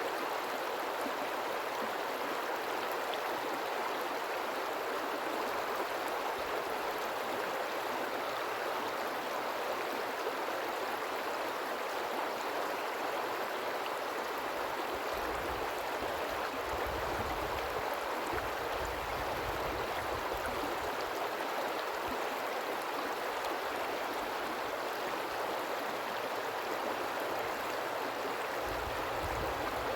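A river's water flowing with a steady rushing noise.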